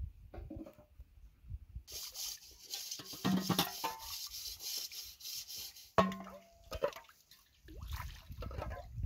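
A hiss of liquid, from about two seconds in to about seven, with clinks and a sharp ringing knock of metal cookware about six seconds in.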